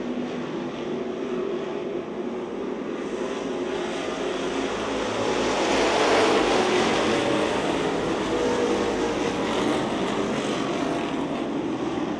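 A pack of street stock race cars on a dirt oval, their engines running hard together in one continuous sound that grows loudest about halfway through as the cars pass nearest.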